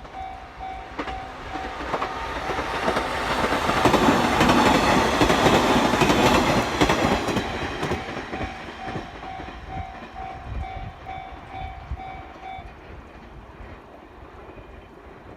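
JR 719 series electric train, two two-car sets coupled, passing over a level crossing: the wheels clatter over the rail joints, growing louder to a peak about four to seven seconds in, then fading away. A level-crossing warning bell rings in quick repeated strokes, about three a second, throughout the pass and stops about twelve seconds in.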